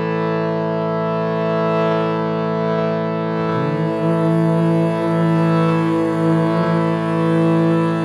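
Kirtan music with no singing: a dense drone of steady held tones. About three and a half seconds in, a low melody line slides up into a long, slightly wavering held note.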